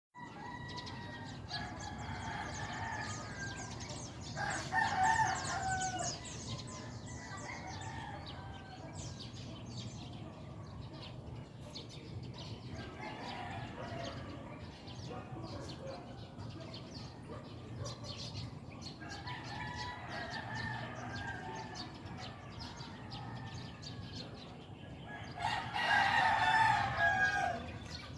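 Rooster crowing several times, the loudest crows about five seconds in and near the end, with chickens clucking between them.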